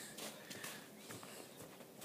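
Faint footsteps through snow, soft and irregular.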